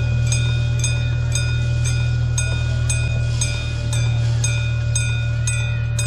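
Railroad crossing signal bell ringing steadily, about three strikes a second, over a low steady rumble.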